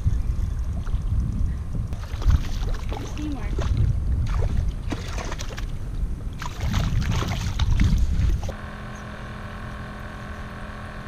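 Wind and handling noise rumbling on a hand-held camera's microphone, with scuffs and rustles. About eight and a half seconds in it cuts off abruptly to a quieter steady hum of several held tones.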